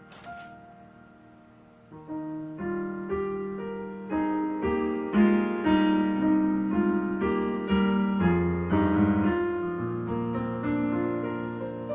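Digital piano playing a slow hymn in full chords. A held chord fades at the start, there is a brief paper rustle from handling sheet music, and the playing picks up again about two seconds in.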